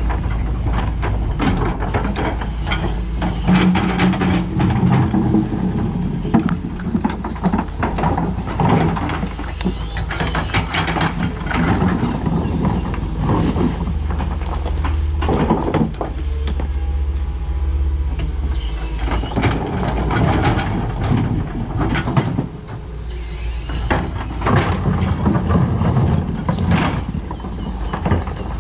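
Doosan DX225LCA hydraulic crawler excavator at work: its diesel engine runs steadily under load, with many irregular clanks, knocks and scrapes of the bucket and its load.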